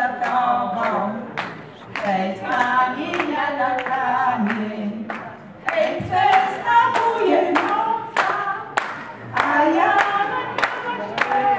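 A small group of women singing a song unaccompanied, with handclaps keeping a steady beat of about two claps a second.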